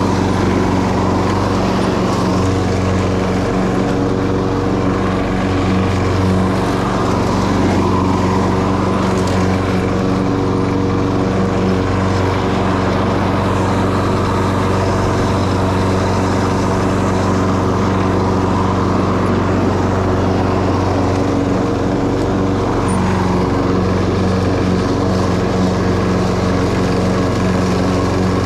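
Toro Personal Pace self-propelled lawn mower's Briggs & Stratton 190cc engine running steadily at constant speed while mowing grass.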